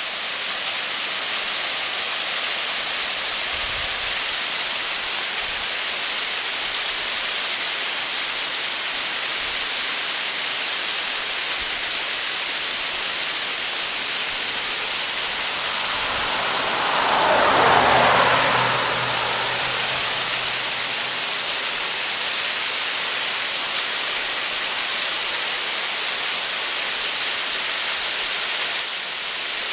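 Cascading waterfall: a steady, even rush of water spilling over rocks. About halfway through, a louder swell builds and fades over a few seconds.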